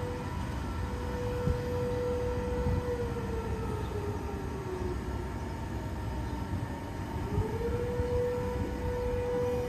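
Civil-defence warning siren sounding a steady tone during a siren test. About three seconds in the pitch slides down and fades, and it climbs back up to the steady tone about seven and a half seconds in.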